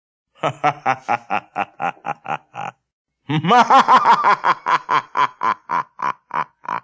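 A man's voice performing a spooky ghost laugh, quick staccato 'ha-ha' pulses about five a second. It pauses briefly about three seconds in, then a louder second run swoops up and down in pitch before settling on a steady note.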